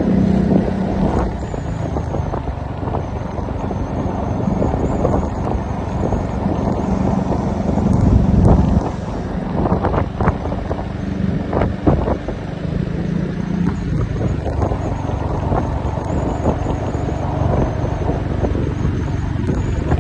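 Wind buffeting the microphone on a moving Piaggio MP3 three-wheeled scooter, over the scooter's engine hum and road noise. A louder gust rumbles about eight seconds in, and there are a few short knocks soon after.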